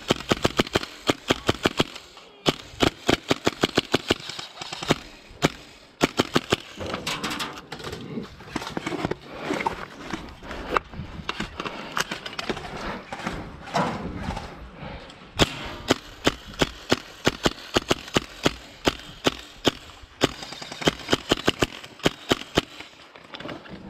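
Airsoft guns firing in rapid bursts of sharp snapping shots, several runs of them with short pauses between.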